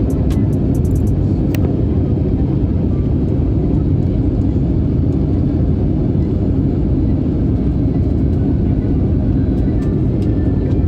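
Steady low rumble of a vehicle in motion, with a few light clicks in the first second or so.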